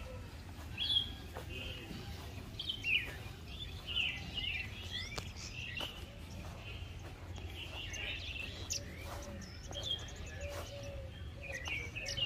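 Small birds chirping and calling, with many short high chirps and quick up-and-down whistles scattered throughout, over a steady low rumble.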